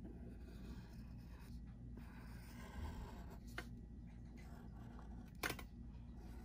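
Mechanical pencil lead scratching faintly on paper as long wavy lines are drawn, with a short sharp click about halfway through and a louder one near the end.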